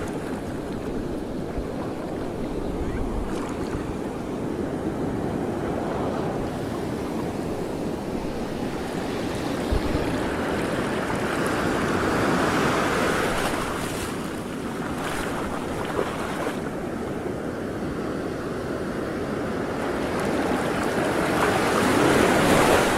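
Wind buffeting the microphone over open water, with washing, wave-like noise that swells louder about halfway through and again near the end.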